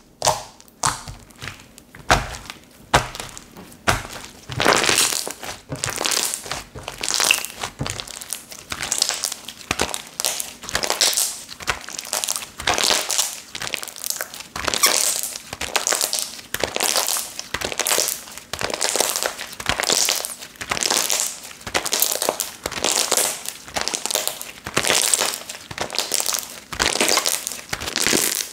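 A slime that has been left unused for a long time, squished and pressed by hand: short, noisy squishes repeating about once or twice a second. There are a few sharp clicks in the first few seconds.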